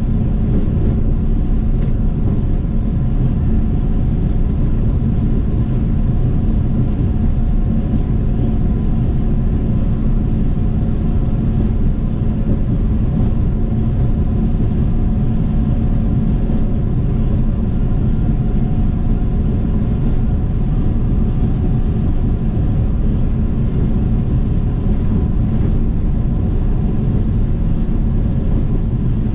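Car driving at a steady speed: a constant low rumble of tyre and engine noise with a steady hum, unchanging throughout.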